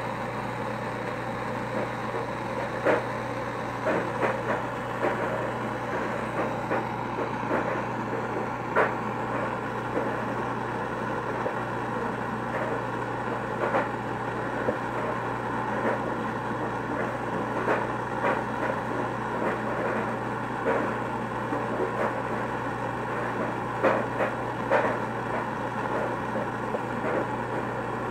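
Gas torch flame burning with a steady hiss, with scattered light clicks and taps throughout.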